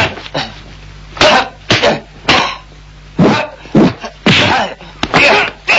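Kung fu fight sound effects: a quick series of dubbed punch and kick impacts, about nine in all, mixed with the fighters' short sharp shouts and grunts.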